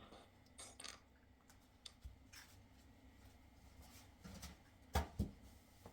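Quiet kitchen handling: scattered light clicks and taps, then two sharp knocks about five seconds in, as bread and eggs are set out on a tray.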